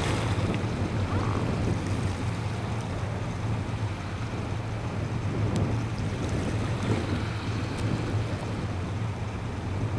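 Wind buffeting the microphone over choppy water, with small waves washing against a rock groyne and a steady low hum underneath.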